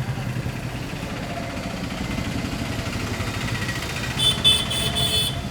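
A motor vehicle engine running steadily with a low rumble. About four seconds in comes a quick run of about four high-pitched beeps.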